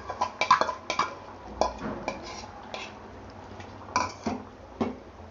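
Spoon knocking and scraping against a cooking pot while ground onion paste is added and stirred in, with a quick run of clinks in the first two seconds and a few more near the end.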